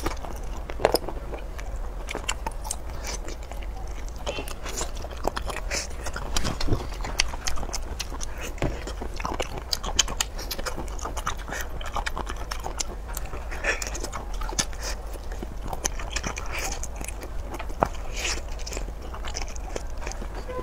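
Close-miked eating: biting and chewing, with many sharp, irregular clicks throughout and a steady low hum underneath.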